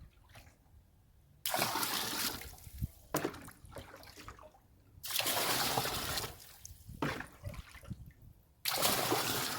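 Scoopfuls of rainwater poured into a trash can, three pours a few seconds apart, each a brief rush of splashing water with dribbling between.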